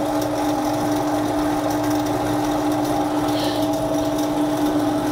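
Bench pillar drill running unloaded: its electric motor and spindle give a steady hum with a few constant tones, the bit not yet cutting.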